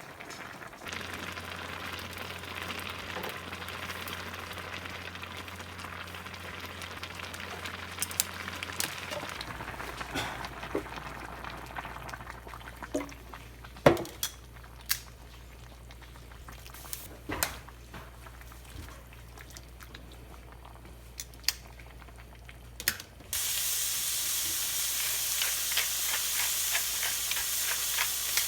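Home kitchen cooking sounds: a soft hiss over a steady low hum, then scattered clicks and knocks of utensils. About three-quarters of the way through, loud sizzling of food hitting a hot pan starts abruptly and keeps going.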